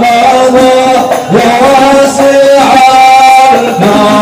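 Men's voices singing a devotional Arabic qasida together, drawing out long held notes that step and slide from one pitch to the next.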